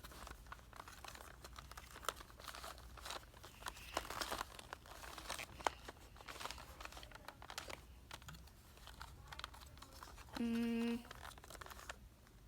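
Plastic panda-shaped puzzle cube being twisted and its pieces pushed, with scattered small clicks and clacks. About ten seconds in, a short steady tone sounds for about half a second.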